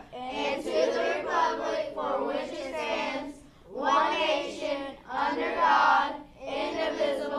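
A group of voices reciting the Pledge of Allegiance in unison, in phrases with short pauses between them.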